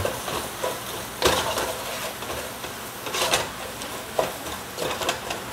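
Ginger-garlic paste, onion and whole spices frying in oil in a pan, sizzling steadily, with a spoon scraping against the pan a few times as the mixture is stirred.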